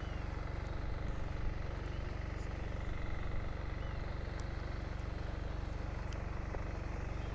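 Steady low mechanical drone with even, unchanging pitch, and a few faint high chirps over it.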